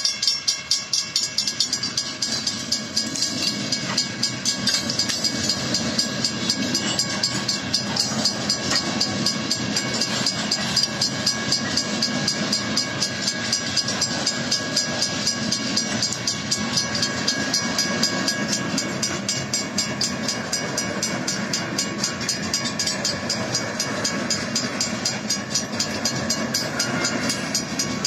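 Two WCH mechanical crossing-signal bells ringing rapidly and continuously while a freight train of covered hopper cars rolls over the crossing, its wheels rumbling and clacking on the rails. The train noise builds from a couple of seconds in.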